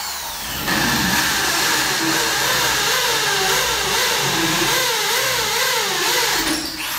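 Corded electric drill boring an 8 mm hole into a plastered wall for a wall plug. The motor runs at full speed, its pitch wavering up and down as the bit bites under load, then winds down near the end.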